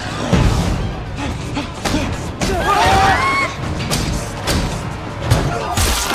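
Film action-scene soundtrack: dramatic score music with repeated heavy thumps and crashes from a fight.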